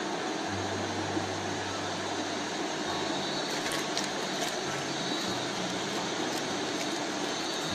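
Mountain stream running over rocks: a steady rushing of water, with a few faint clicks about three and a half to four and a half seconds in.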